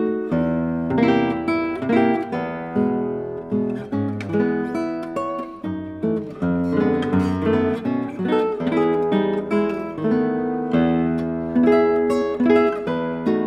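Classical guitar played fingerstyle as a solo piece: a melody of plucked notes over chords, each note ringing and dying away.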